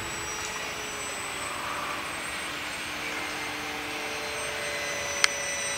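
Radio-controlled Polaris float plane flying past at a distance: its motor and propeller make a faint steady whine over a hiss, shifting slightly in pitch. A single sharp click about five seconds in.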